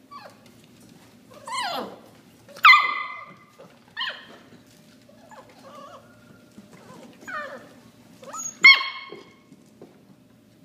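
Seven-week-old chocolate Labrador puppies giving short, high-pitched barks and yips while playing, about six separate calls, some falling in pitch, the loudest two about a quarter of the way in and near the end.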